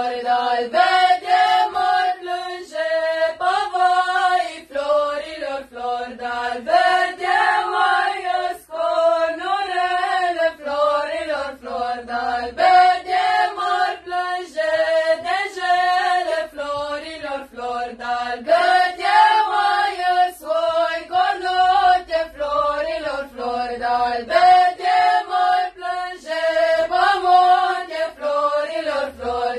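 A mixed group of young men and women singing a traditional Romanian colindă (Christmas carol) together, unaccompanied, in a chant-like melody that repeats phrase after phrase.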